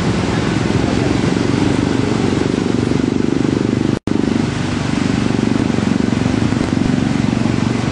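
Motor scooters and motorcycles running through a flooded road, their engines mixed with water splashing from the wheels, as steady traffic noise. The sound cuts out for an instant about four seconds in.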